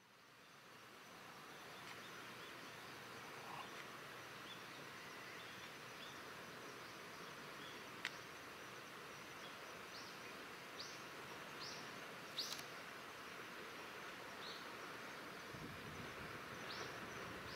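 Steady outdoor background hiss that fades in at the start. Over it, a small bird gives short high chirps several times in the second half, and there are a couple of sharp clicks.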